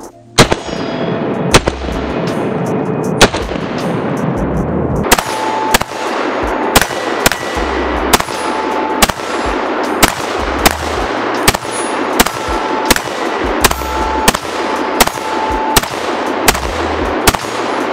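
A 5.56 AR-15 pistol is fired semi-automatically: a few spaced shots, then from about five seconds in a steady string of about two shots a second, each shot cracking and ringing out. Background music with a steady beat plays underneath.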